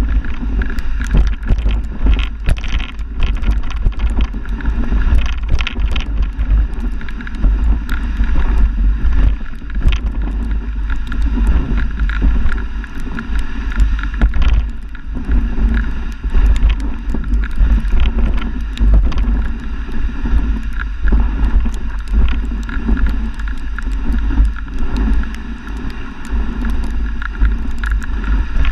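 Dog sled moving over snow, heard from a camera mounted on the sled: a steady low rumble from the runners and the jostling sled, with frequent small knocks and rattles and wind on the microphone.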